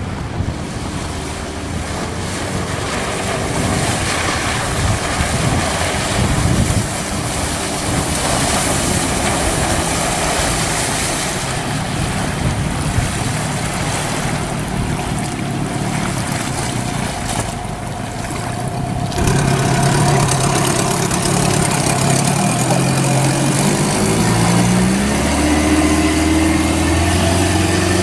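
Mariner 9.9 hp two-cylinder two-stroke outboard motor running at speed on an inflatable dinghy, mixed with wind on the microphone and the rush of water. About two-thirds of the way in the engine becomes louder and clearer, and near the end its pitch rises.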